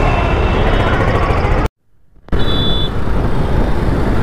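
Motor scooter road noise and rumble with traffic around it. The sound cuts out for about half a second near the middle, then comes back with a brief high-pitched tone as the scooter rides on.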